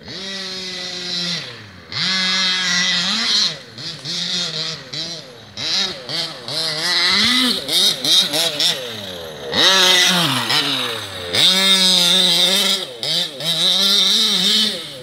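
Small two-stroke petrol engines of 1/5-scale RC cars (Losi 5ive and Baja Kraken) revving hard and dropping back off the throttle over and over, their pitch rising and falling every second or two. Two or more engines are often heard at once at different pitches.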